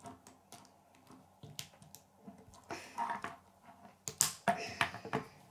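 K'nex plastic rods and connectors clicking and rattling as they are handled and snapped onto the model, in scattered sharp clicks that bunch together about three seconds in and again between four and five seconds in.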